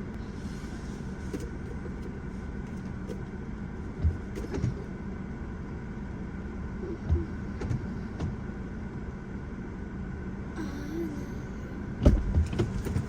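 A car running with a steady engine and road hum, and a few short knocks and bumps. There is a heavier thump near the end.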